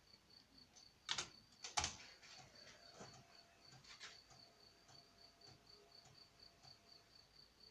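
Two sharp key clicks on the Amstrad CPC 6128's keyboard, then its 3-inch disk drive loading a game: a faint steady hum with light ticks of the head stepping, which stop near the end. A faint high chirp pulses several times a second throughout.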